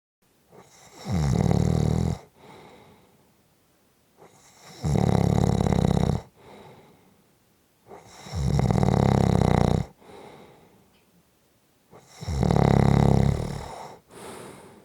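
A sleeper snoring: four long, loud snores about every four seconds, each followed by a softer breath.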